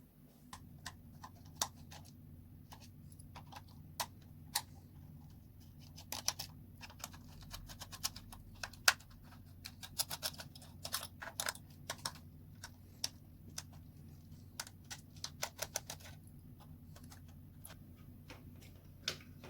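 Irregular small clicks and taps of hands and a tool working on a cheap plastic toy drone as its shell is opened, coming thick and fast in the middle stretch. A faint steady low hum runs underneath.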